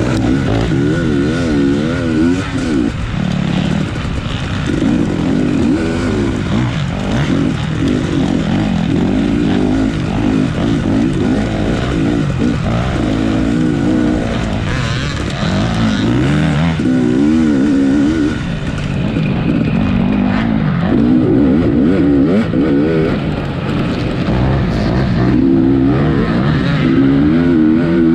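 Dirt bike engine under hard riding, its pitch rising and falling again and again as the throttle opens and closes through the gears.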